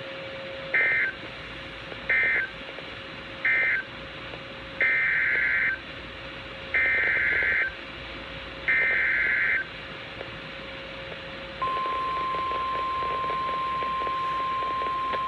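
NOAA Weather Radio Emergency Alert System tones. First come three short SAME data bursts, the end-of-message signal that closes the severe thunderstorm warning. Then come three longer SAME header bursts, each a buzzy digital warble lasting about a second, which announce the next alert, a flash flood warning. About eleven seconds in, the steady 1050 Hz weather radio warning alarm tone begins and holds.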